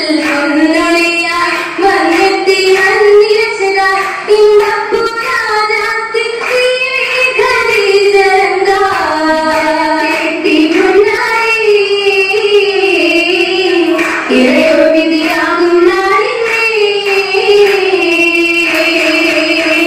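Girls' voices singing an oppana song, a Mappila song, as a single continuous melody line that wavers up and down without breaks.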